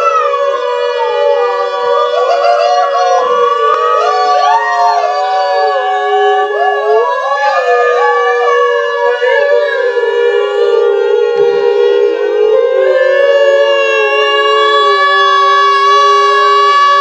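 A group of people chanting a long held 'om' together, several voices each sustaining its own note so that they sound as one chord. In the middle some voices slide up and down in pitch, and by near the end the notes settle into a steady chord.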